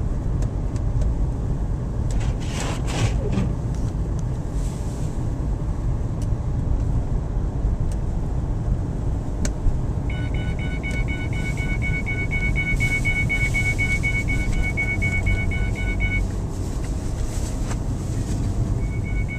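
Car being driven, heard from inside: steady engine and tyre rumble. From about halfway a rapidly pulsing high tone comes in, stops briefly near the end, then starts again.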